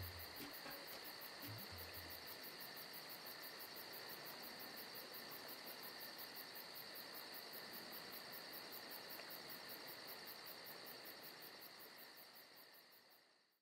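Faint chorus of crickets and other insects chirping in a rapid, even pulse over a steady high drone, fading out near the end.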